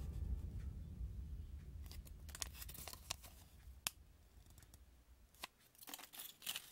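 Faint, sparse crinkles and clicks of a folded paper instruction leaflet being handled and unfolded, while background music fades out over the first few seconds.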